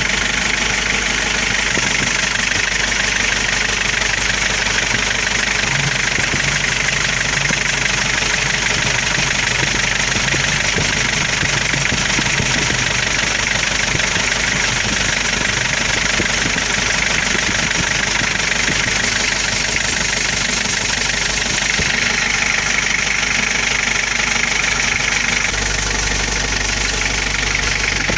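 Mitsubishi H100's diesel engine idling steadily. The owner says its running sound became loud after the timing chain was changed.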